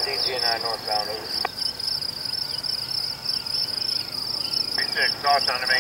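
Insects chirping steadily in a high-pitched, rapidly pulsing trill.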